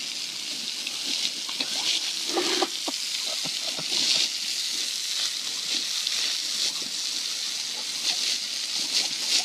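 Garden hose spraying a steady hissing stream onto wet concrete while a dog snaps and bites at the water, splashing through it, with scattered short wet splats and gulps.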